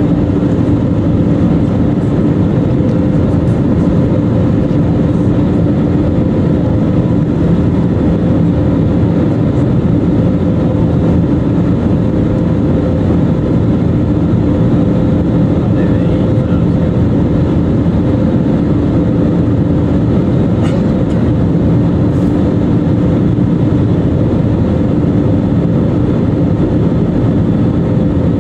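Steady cabin noise inside an Airbus A320neo with CFM LEAP-1A engines: an even, loud drone of engines and airflow with a constant low hum of several tones, unchanging throughout.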